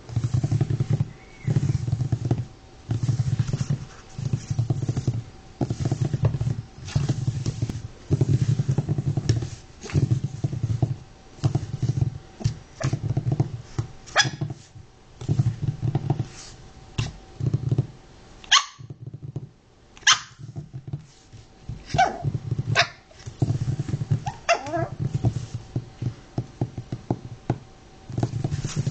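Chinese Crested–Pekingese–fox terrier mix puppy growling in repeated low bursts, about one a second, with a few short high yips in the middle stretch.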